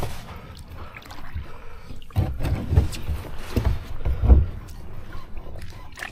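Kayak being paddled in against a rocky shore: paddle strokes and water sloshing around the hull, with four low thumps between about two and four and a half seconds in.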